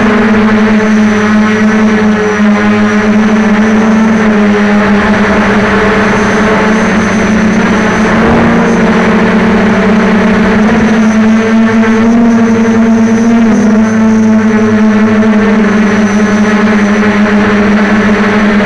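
Quadcopter's electric motors and propellers running loudly close to the microphone, a steady buzzing whine whose pitch wavers slightly as the throttle changes.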